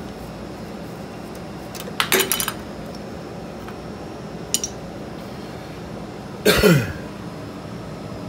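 Metal parts and tools being handled under a reach-in refrigerator: a short clinking rattle about two seconds in, a single tick, then a louder scraping clatter that drops in pitch near the end, over a steady background hum.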